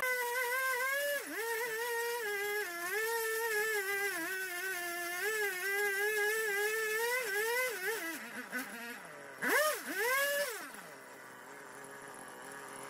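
Two-stroke Husqvarna chainsaw cutting into a tree-stump root at full throttle, its pitch dipping and wavering as the chain bites the wood. After about eight seconds the saw comes out of the cut and the throttle is blipped twice in quick succession, the loudest part. Then it settles to idle.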